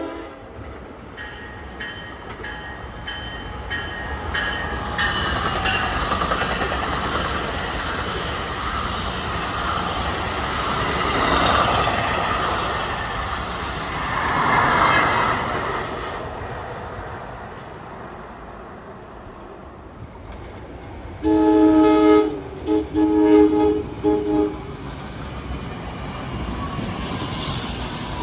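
NJ Transit electric commuter train passing at restricted speed, its wheels rumbling and clattering over the rails as the cars go by. About three-quarters of the way through, a train horn sounds one longer blast followed by several short ones.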